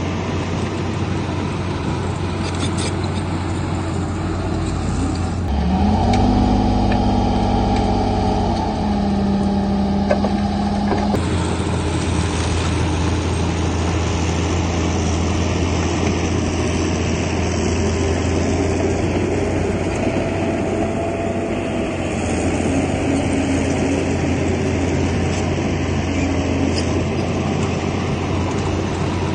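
Heavy diesel engines of earthmoving machinery running steadily. About six seconds in, a second engine's pitched note rises and holds, then cuts off about eleven seconds in.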